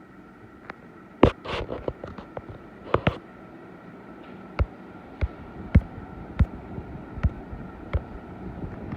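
Venti Delta Plus ceiling fan running with a steady whir and a faint hum, slowly growing louder. A few sharp clicks come in the first few seconds. From about halfway a regular knock repeats roughly every two-thirds of a second.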